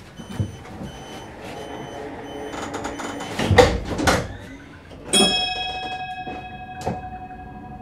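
An EZ10 electric driverless shuttle's sliding doors close: short high warning beeps repeat, then the doors slide shut with a loud rush about three and a half seconds in. Just after five seconds a steady, high multi-tone sound starts suddenly as the shuttle gets ready to pull away, with a single click near the end.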